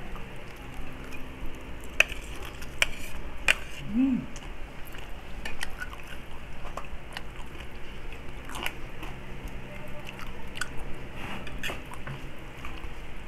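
Close mouth sounds of chewing and biting into crispy pata, a deep-fried pork knuckle, with scattered sharp little clicks and crackles as the meat and skin are torn by hand and eaten. A short voiced sound comes about four seconds in.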